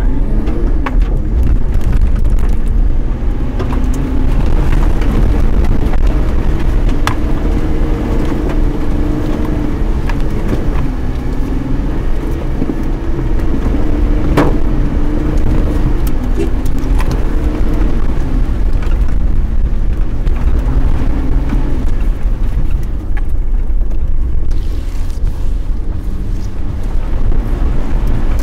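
Car engine running as the car drives along, over a heavy steady low rumble; the engine's pitch wavers up and down with the throttle.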